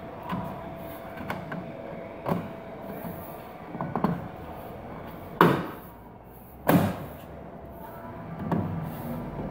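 A series of irregular knocks and bumps against the frame of a glass pane set in a drywall wall, as the fit in the shimmed channel is tried. The two sharpest knocks come a little past halfway.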